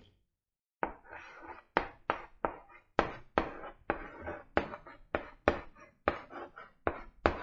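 Chalk writing on a blackboard: a quick series of sharp taps with scratching between them as letters are written, starting about a second in.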